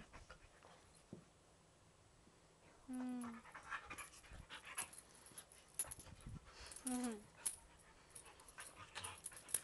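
Two dogs play-fighting: scuffling and panting, with two short pitched vocal sounds from the dogs about three and seven seconds in, the second dropping slightly in pitch.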